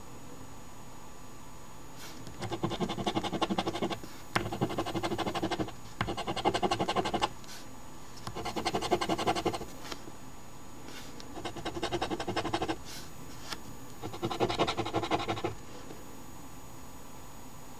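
Scratching the coating off a scratch-off lottery ticket: six bursts of quick rasping strokes, each one to two seconds long, with short pauses between.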